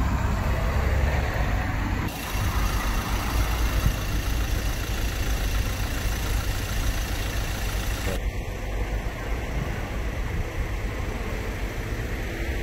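Vehicle engines running in the street, a steady low rumble mixed with traffic noise; the sound changes abruptly twice, about two and eight seconds in.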